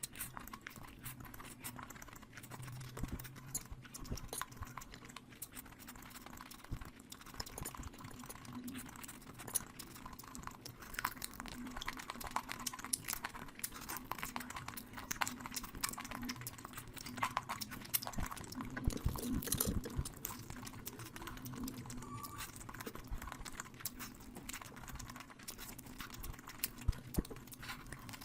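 Close-miked chewing and wet mouth sounds of someone eating curry and rice, a run of small irregular smacks and clicks over a faint steady hum.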